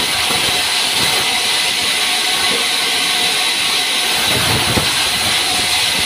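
Sawmill band saw running and cutting lengthwise through a pine slab: a loud, steady, high-pitched noise that holds without a break.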